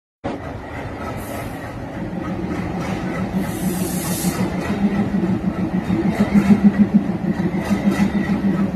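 A heavy machine running with a steady low hum that pulses and grows louder in the second half, with two short bursts of hiss, the longer one about three and a half seconds in.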